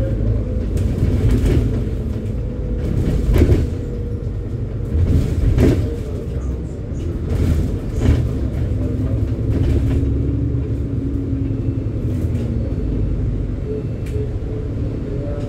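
Interior of a double-decker bus on the move: a steady low rumble from the engine and road, with a faint hum and a few sharp knocks and rattles from the body over the first half.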